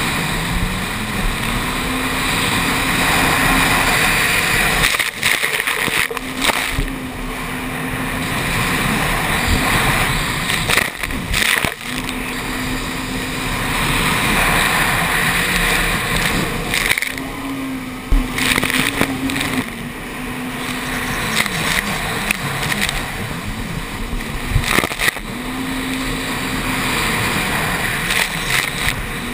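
Jet ski engine running hard, revving up to a steady high pitch and falling away again about every five seconds as the craft works through turns, with short sudden dips between surges. Rushing water and spray noise run underneath.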